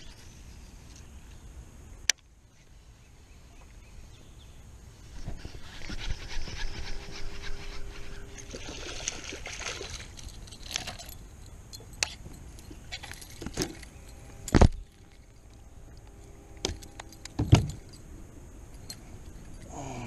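Handled fishing gear jingling and clicking for several seconds about a quarter of the way in, then a few sharp knocks, the two loudest near the end.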